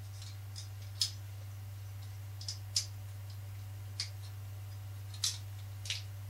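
A handful of short, sharp plastic clicks and taps at irregular intervals, from a small plastic ninja action figure and its tiny sword being handled, as the sword is pushed into the figure's hand that will not hold it.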